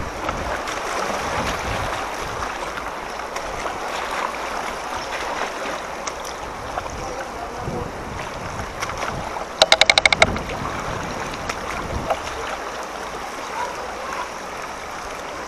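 Steady rush of flowing floodwater. About two-thirds of the way in, a brief rapid buzzing sound cuts in for under a second.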